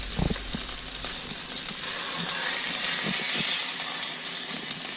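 Olive oil sizzling in a frying pan as pan-seared fish steaks are lifted out with a spatula; the sizzle swells a little in the middle.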